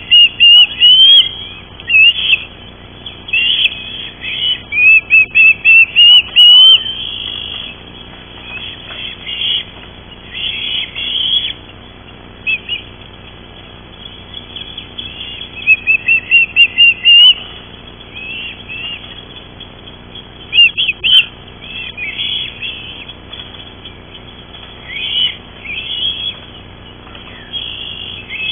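Ospreys calling at the nest: loud runs of quick, high whistled chirps, several notes to a run, coming again and again throughout.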